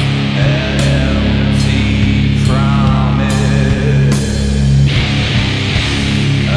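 Doom metal recording: heavily distorted electric guitar and bass holding long low chords over drums, with cymbal crashes repeating through it.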